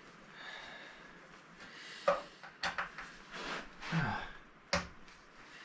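A few sharp metallic clicks and clinks with rustling in between, as gloved hands handle a screwdriver against the inverter's metal case to take off its cover screws.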